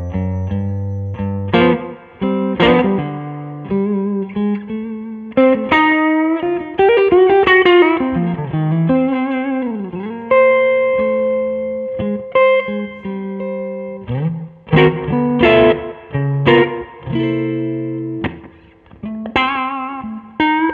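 Improvised blues lead on an SVL Stratocaster-style electric guitar through a Two-Rock Classic Reverb Signature amplifier: picked single-note phrases and chord stabs, with string bends and vibrato and a long held, bent note about halfway through.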